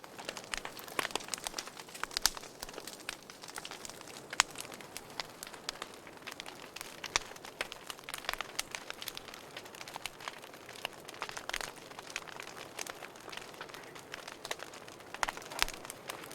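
Wood fire crackling in a fireplace: irregular sharp pops and snaps, a few louder than the rest, over a steady soft hiss.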